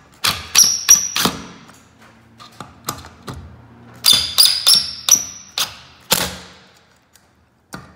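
Sharp metallic clicks and clinks with a brief ringing, in two clusters of several strikes each, about a second in and again around four seconds in, as a ceiling fan's metal mounting bracket and its screws are fastened to a ceiling electrical box.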